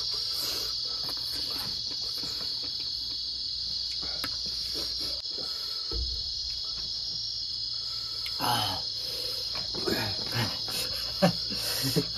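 Crickets chirring in a steady, unbroken high drone. Small clicks and smacks of people eating with their fingers sound over it, and a few short voiced murmurs come from about eight seconds in.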